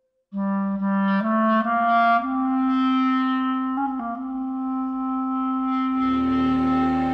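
Solo clarinet: after a brief pause, a few short notes step upward into one long held note, with a quick ornament partway through.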